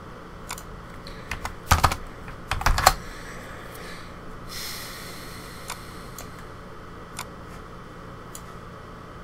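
Computer keyboard and mouse clicks at a desk: scattered single clicks, with two louder quick flurries of taps about two and three seconds in, then a short soft hiss and a few sparse clicks.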